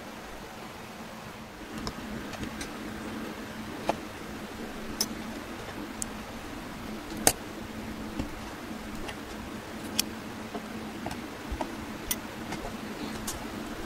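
Scattered sharp clicks and light taps, about ten in all and the loudest about seven seconds in, over a steady low hum.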